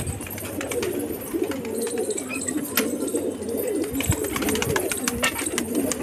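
Several domestic pigeons cooing continuously, their low wavering calls overlapping, with scattered light clicks and taps.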